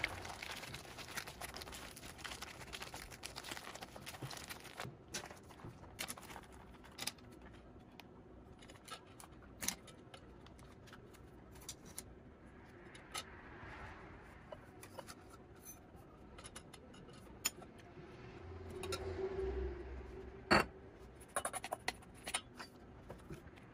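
Plastic pouch crinkling as it is kneaded, then scattered light clicks and taps. Near the end a metal spoon clinks sharply and scrapes in a stainless steel bowl of chopped nuts.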